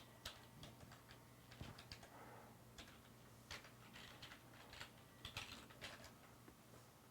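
Faint, irregular clicks of computer keyboard keys being typed, in scattered taps and short runs, over a faint steady low hum.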